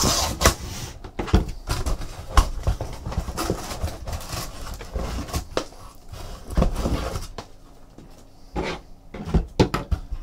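Shrink-wrapped hobby boxes of hockey cards being pulled one after another out of a cardboard shipping case and set down on a table: cardboard and plastic wrap rubbing and scraping, with a series of light knocks as the boxes land and are stacked.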